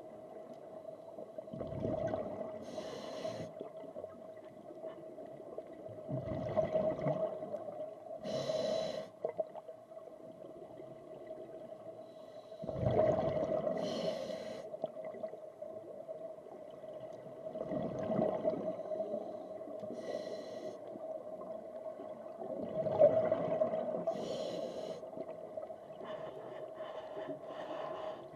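Scuba diver breathing through a regulator underwater: a slow rushing inhale, then a burst of bubbling exhaust, repeated roughly every five seconds. A steady hum runs underneath.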